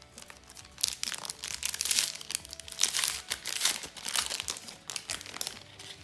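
Foil wrapper of a Panini Adrenalyn XL card pack being torn open and crinkled by hand. The dense crackling starts about a second in and eases off near the end.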